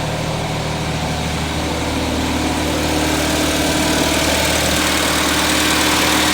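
1979 Datsun 210's four-cylinder engine idling high, a steady running note that grows slightly louder after about two seconds. The owner says the engine is still misfiring.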